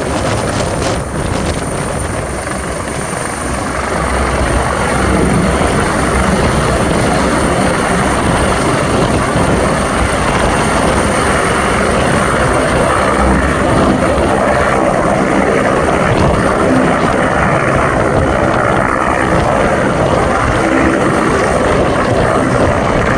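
Helicopter running steadily: dense engine and rotor noise with a thin, steady high-pitched whine over it, growing a little louder about four seconds in.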